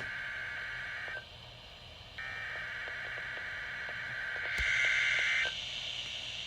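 Emergency Alert System SAME header data bursts, a harsh two-tone digital screech. One burst ends about a second in; after a one-second pause a longer burst runs for about three seconds. A hiss of radio static sits under both.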